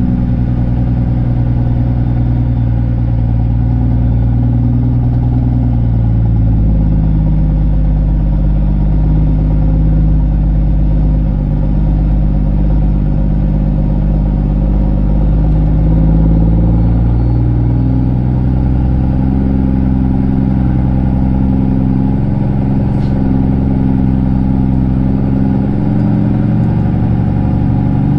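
Straight-piped Cummins ISX diesel of a Kenworth C500 truck running under way, its deep exhaust note stepping up and down in pitch several times as the truck drives.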